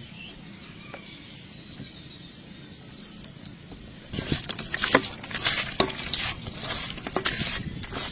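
Raw sliced pig liver being kneaded and mixed by hand with salt and squeezed lime halves in a stainless steel bowl: wet squelching and clicking that starts about four seconds in, after a few quiet seconds.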